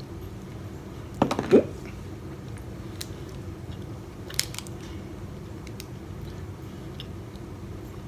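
A person biting into and chewing an untoasted frosted pumpkin pie Pop-Tart. There is a short loud sound about a second and a half in, then a few small crisp crunches, over a steady low room hum.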